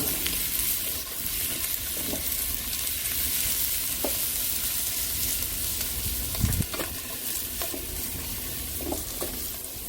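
Pork sizzling in oil in a wok over a hot wood fire: a steady frying hiss, with scattered clicks and scrapes of a utensil stirring and a louder knock about six and a half seconds in.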